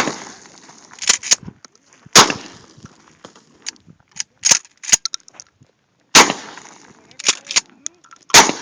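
Mossberg tactical shotgun firing four loud shots, about two seconds, four seconds and two seconds apart, each followed by a short echoing tail. Quieter sharp clicks come between the shots.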